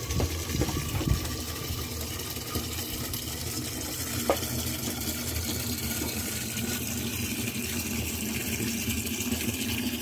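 Spring water running steadily from a fountain tap, filling bottles. A few knocks in the first second and a single click about four seconds in.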